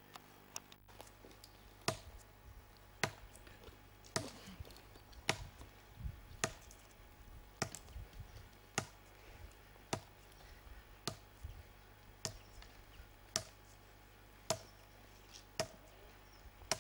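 Sharp, short knocks on a tree trunk at a slow, very even pace of about one a second, the rhythm of repeated strikes against the tree.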